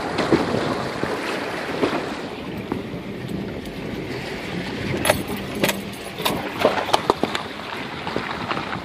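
Subaru Forester churning through a shallow creek: water splashing and rushing around the car. From about halfway on, its tyres crunch over ice and gravel as it climbs out, with a string of sharp cracks.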